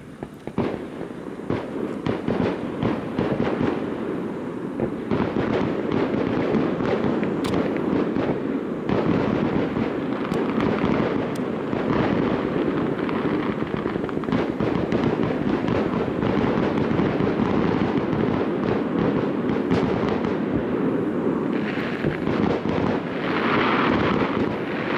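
Fireworks display: a dense, continuous barrage of shell bursts and crackling that builds over the first few seconds and keeps going, with a hissing crackle swelling near the end.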